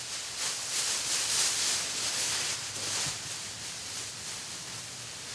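A thin covering sheet rustling in repeated swishes as it is pulled off a large clay sculpture, louder over the first few seconds and then settling to a softer rustle.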